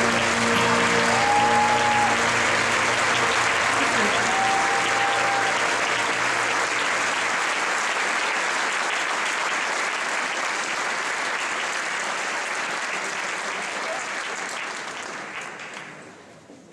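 Concert audience applauding, with two short whistles, as the brass and percussion band's final chord dies away in the first few seconds. The applause fades out near the end.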